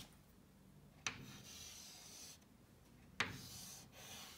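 A stick of chalk writing letters on a chalkboard: two strokes, each starting with a sharp tap as the chalk meets the board and going on as a faint, scratchy rasp for about a second.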